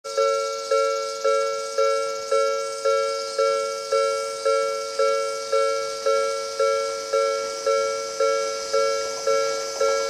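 Japanese railway level-crossing alarm ringing its repeated 'kan-kan' chime, about two strikes a second, each struck sharply and dying away. It warns that a train is approaching the crossing.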